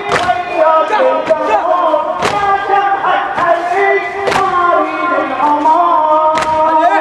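A crowd of men chanting a Shia mourning lament (latmiya) in unison, the long sung lines gliding in pitch. Sharp slaps of chest-beating (latm) come about once a second.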